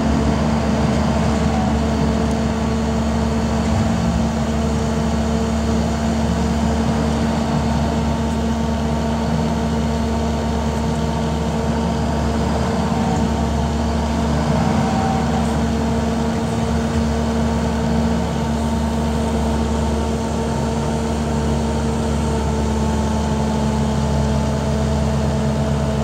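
Diesel engine of a Bobcat compact track loader running steadily as its forks lift a boulder, with a constant engine hum.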